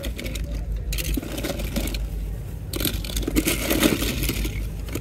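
Small die-cast metal toy cars clattering and scraping together as a hand sorts through a pile of them, in two busy spells, over a steady low rumble.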